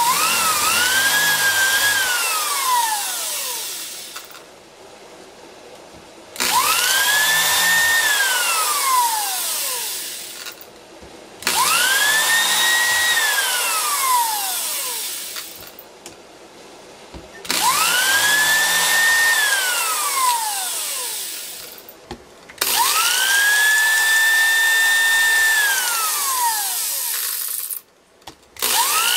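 Electric hand drill boring small holes through thin brass sheet with a fine bit: each time the motor whines up to speed, runs a few seconds, then winds down with a falling whine. It goes about five times, with short pauses between, and starts again at the very end.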